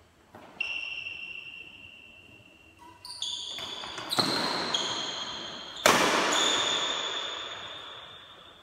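Four sharp knocks, each followed by a high ringing tone that fades away over a second or more. The last knock, about six seconds in, is the loudest, and its sound echoes and dies away slowly in a large metal-walled hall.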